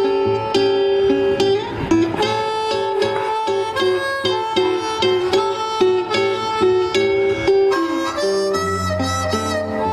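Blues harmonica solo, played cupped against a microphone, with held and bending notes over a strummed and picked resonator guitar; lower guitar bass notes come in near the end.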